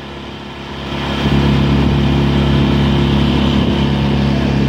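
A small boat's outboard motor throttled up about a second in, growing louder, then running steadily at speed as the boat picks up pace.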